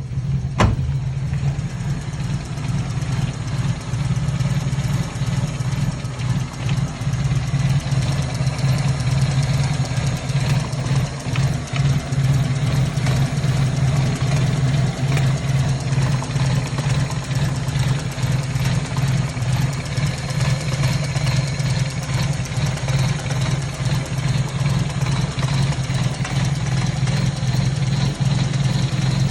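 1997 Toyota Corolla engine idling steadily at low rpm on a cold start, the car being hard to start. There is a single sharp click about half a second in.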